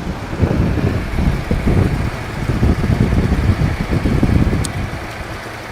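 Car engine running after a jump start from a portable lithium jump box, with a steady low hum under a loud, uneven rumble that eases near the end; wind buffets the microphone.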